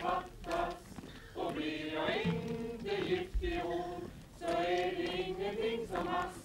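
A mixed group of men's and women's voices singing a folk song together in short phrases, with brief pauses between them, as a sung ring-dance tune.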